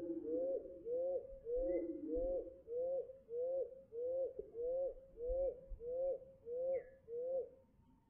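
White-breasted nuthatch song played slowed down: a steady series of low notes, each rising then falling in pitch, about two a second, stopping shortly before the end.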